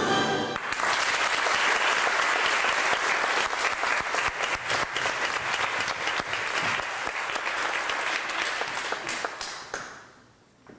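Music ends less than a second in, and a small audience applauds: many hands clapping at once, dying away near the end.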